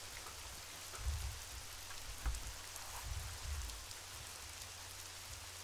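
Underwater reef ambience: a steady fine crackle with scattered tiny clicks, typical of a reef's snapping shrimp. A few low dull thumps come between about one and four seconds in.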